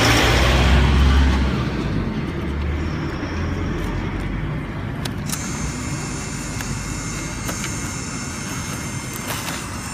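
Vending machine's bill acceptor drawing in a 1000-yen note: a click about five seconds in, then a steady high whine of the note-feed mechanism, ending with another click near the end. A low rumble is loudest in the first second and a half.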